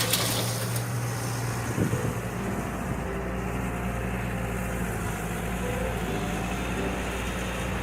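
Excavator's diesel engine running steadily with an even low hum, and a faint knock about two seconds in.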